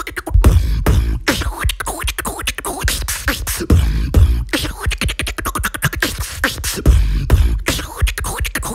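Beatboxing by a single performer: a dense run of fast mouth clicks and percussive hits, with deep bass sounds swelling a few times, near the start, in the middle and near the end.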